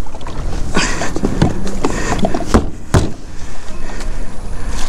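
Hard knocks and handling noise on a plastic sit-on-top kayak as gear is moved about on it, two sharp knocks standing out near the middle, over a steady low rumble on the microphone.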